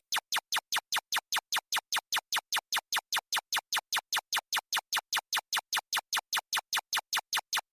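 Synthetic data-scroll sound effect: a steady, evenly spaced run of short digital ticks, about six a second, all at the same level.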